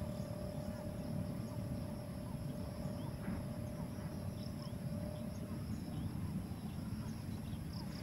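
Quiet outdoor waterside ambience: a low rumbling noise, a faint steady hum that fades out about five and a half seconds in, a thin high steady whine, and scattered faint chirps.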